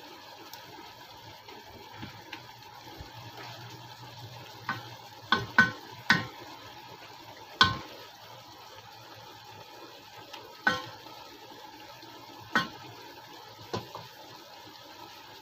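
Sauce simmering and reducing in a pan with fried milkfish, a steady low bubbling hiss. A metal utensil clinks sharply against the pan about eight times: a quick run of clinks about five to six seconds in, then a few more spaced out.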